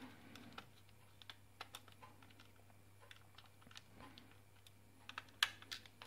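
Faint, scattered clicks of a small precision screwdriver turning screws out of the plastic base of a Logitech M705 wireless mouse, with one sharper click about five and a half seconds in.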